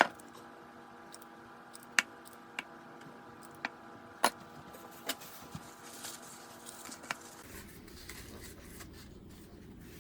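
A utensil clinking and tapping against a metal muffin tin and mixing bowl as thick pancake batter is portioned into the cups: about eight sharp, irregular clinks. A steady hum runs underneath and changes to a lower, rougher background about three-quarters of the way through.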